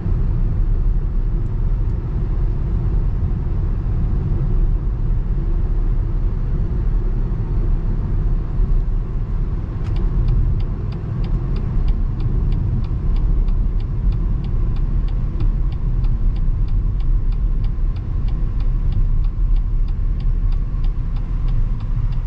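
Steady road and engine rumble inside a moving car's cabin. About halfway through, the turn-signal indicator starts ticking, about three clicks a second, and keeps on.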